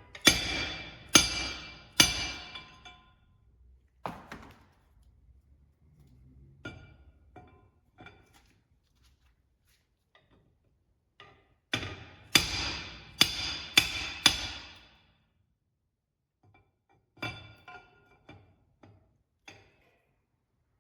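Hammer blows on steel axle parts, each followed by a metallic ring: three strong blows at the start, a quicker run of about five a little past the middle, and lighter taps in between.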